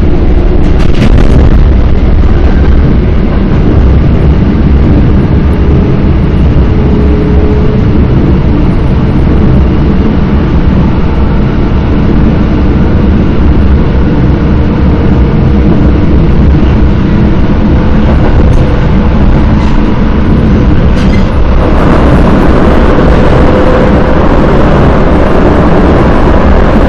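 Inside an EN57 electric multiple unit under way: a steady, loud rumble of wheels on the rails with a faint traction-motor whine. About three-quarters of the way through, the noise turns brighter and harsher as the train runs onto a steel truss bridge.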